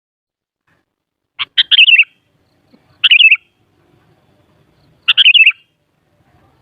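Sooty-headed bulbul (kutilang) singing three short phrases of quick notes. Each phrase lasts under a second and ends a little lower than it starts. The first phrase comes about a second and a half in, the next two about two seconds apart.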